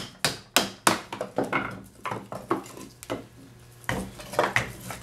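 A wooden club striking the spine of a knife to drive it down through a small log, about four sharp strikes in the first second as the blade works through a knot. After that come lighter knocks and a metallic clatter as the knife and club are handled and set down on the wooden board.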